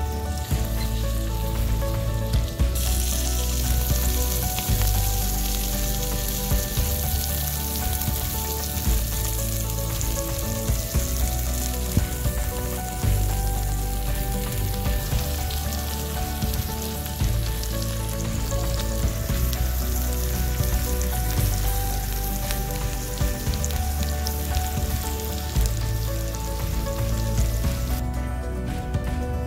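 Sausages and bacon sizzling in oil in a cast-iron skillet; the sizzle comes in about three seconds in and stops near the end. Background music plays throughout.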